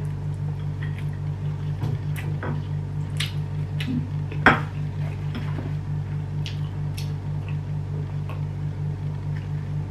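A person chewing a mouthful of rice, beef and crunchy raw jengkol close to the microphone: wet chewing with scattered crunches and mouth clicks, the sharpest about halfway through. A steady low hum runs underneath.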